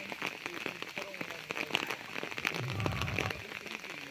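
Rain falling, many small drops ticking close to the microphone at an irregular rate, with faint voices under it. A brief low rumble comes about three seconds in.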